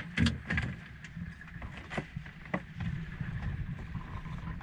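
Small fishing boat's motor running steadily under wind and sea noise, with a few short knocks and rustles as the wet longline is hauled aboard hand over hand.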